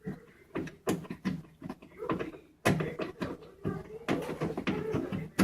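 Irregular clicks and knocks of a screwdriver working loose a mounting screw on an over-the-range microwave.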